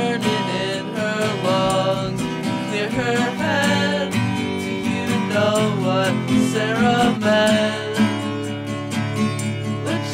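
Background music: strummed acoustic guitar carrying a wavering sung melody.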